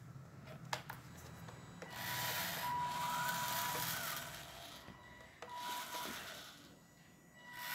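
Small DC gear motors of a homemade Arduino-driven RC car whirring with a whine in two bursts, a longer one about two seconds in and a shorter one near the end, as the wheels are driven by radio control. A few light clicks come before the bursts.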